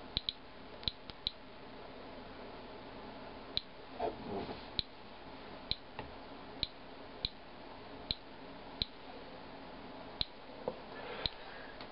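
Inspector Alert Geiger counter clicking at irregular intervals, about one click a second. Each click is a detected radiation count during a timed count of rainwater soaked into a paper towel.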